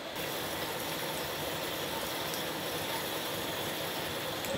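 Steady whirring rush of electric fans blowing air onto a burning wood fire.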